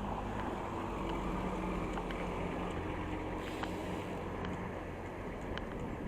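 Steady wind noise on the microphone of a moving bicycle rider, with a low hum of road traffic.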